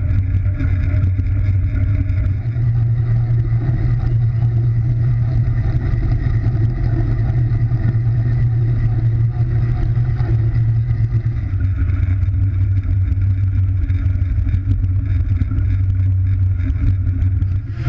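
Wind and wheel noise from a track bike ridden fast around a wooden velodrome, picked up by a camera on the bike: a loud, steady low rumble.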